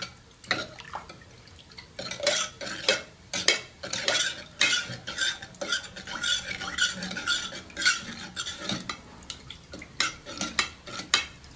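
A metal spoon stirring soaked toor dal in water inside a pressure cooker pot, clinking and scraping against the pot's sides and bottom in quick, irregular strokes.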